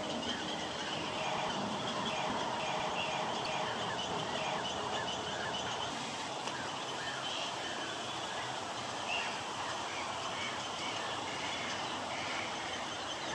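Many birds calling at once: a dense, steady chorus of short chirps and calls.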